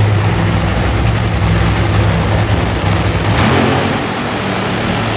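Drag racing cars' engines running at full throttle, a loud, steady, harsh blare that thins in its lowest rumble about three and a half seconds in.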